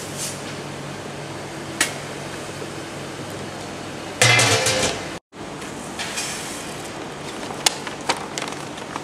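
Steady hum of running machinery, with a knock about two seconds in and a loud burst of clatter around four seconds. The sound then cuts off sharply and is followed by a plastic bag crinkling and crackling in short sharp bursts as hands work inside it.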